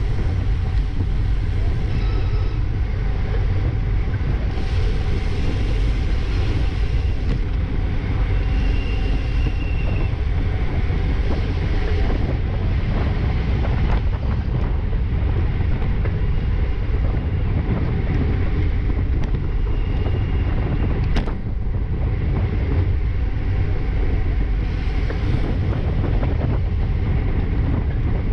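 Wind buffeting the microphone of a camera on a moving road bicycle: a steady low rumble of rushing air, with a single sharp click about 21 seconds in.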